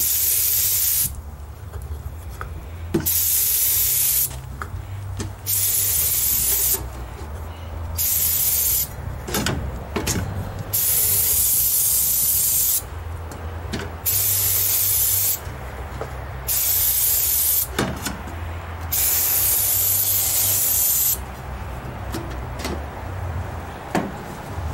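Aerosol can of carburettor cleaner spraying in about nine bursts of one to two seconds each, washing out the wire-mesh element of an oil bath air filter.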